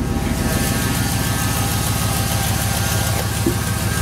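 2003 Chevy Silverado 2500HD's 6.0-litre V8 idling steadily, heard up close at the engine bay. The owner wants one of its belt pulleys heard, which he takes to be one of the truck's faults.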